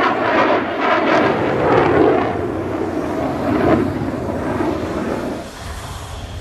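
Jet noise of a HAL Tejas light fighter's General Electric F404 turbofan as the jet flies past, a dense rushing roar that wavers and drops off somewhat a little over five seconds in.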